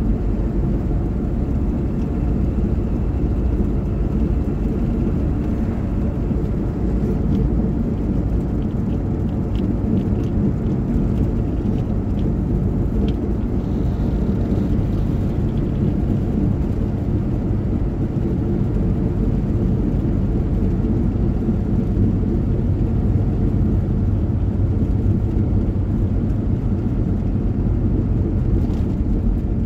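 Steady low rumble of a car's tyres and engine heard from inside the cabin while driving at road speed.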